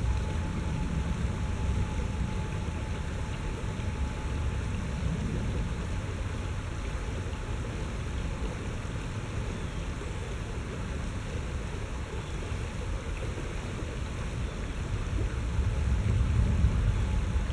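Shallow river rushing steadily over rocks in a riffle, with a low rumble underneath that grows louder near the end.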